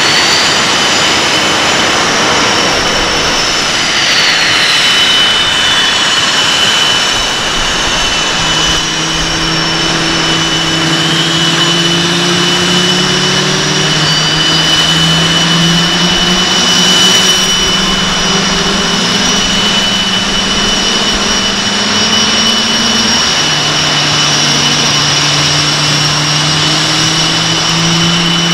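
Boeing F/A-18 Hornets' twin General Electric jet engines running at ground idle: a loud steady roar with a high whine. From about eight seconds in, a low hum that slowly rises in pitch joins the roar.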